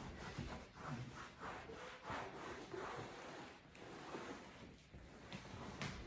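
Faint, irregular rubbing of a cloth being wiped over leather upholstery while it is cleaned and shined.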